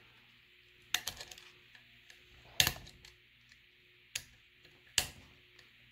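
A metal screwdriver tip clicking and scraping as it prys at a wire connector on a terminal in the base of an electric kettle. The connector may have melted onto its terminal. Four sharp clicks come about a second and a half apart, the second the loudest.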